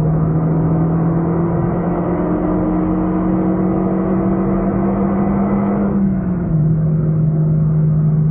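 Renault Megane RS265's turbocharged four-cylinder engine pulling hard under full throttle, heard from inside the cabin, its pitch rising steadily. About six seconds in it drops in pitch at an upshift, with a brief dip in loudness, then climbs again in the next gear.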